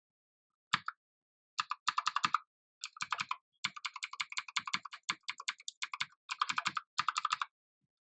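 MK Disco TKL mechanical keyboard being typed on in quick runs of key clicks, several bursts separated by short pauses.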